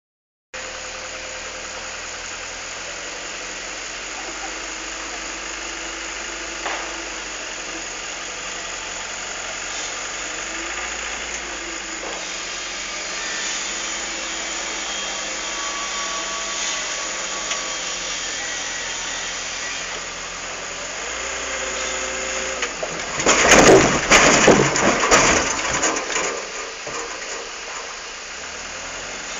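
Diesel engine of a log-grapple wheel loader running steadily as it works up to a loaded log truck, its pitch shifting a little. Near the end comes a loud, dense burst of knocking and clattering lasting a few seconds.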